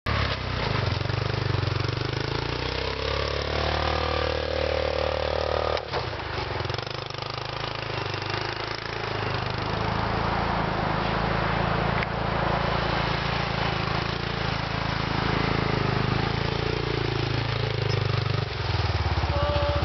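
A 10-horsepower four-wheeler's engine running as it tows a sled over snow. It rises in pitch as the machine speeds up over the first few seconds, drops off sharply near six seconds, then runs steadily, and settles near the end to a slower, even idle.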